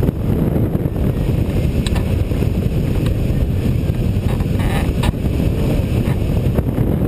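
Wind buffeting the microphone of a camera on a rigid-wing hang glider in flight. The airflow makes a loud, steady rush with a few brief stronger gusts.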